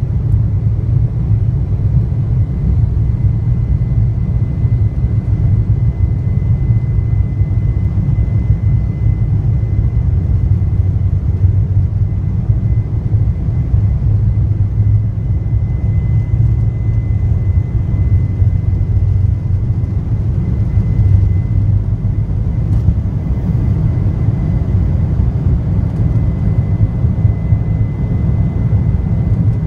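Embraer 175 regional jet heard from inside the cabin over the wing, its two GE CF34 turbofans at takeoff thrust through the takeoff roll and liftoff. A heavy, steady low rumble with a thin high whine held over it.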